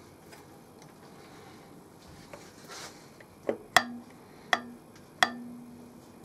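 Three sharp metallic clicks, each followed by a brief low ring, from the grinding vise and workpiece as a metal cylinder block is seated and clamped for milling, after a faint rustle of handling.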